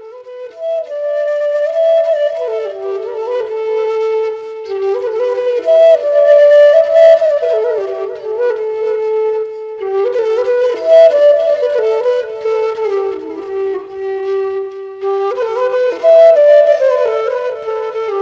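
Bansuri bamboo flute playing a freestyle melody, its notes stepping and sliding from one pitch to the next, with no drum accompaniment.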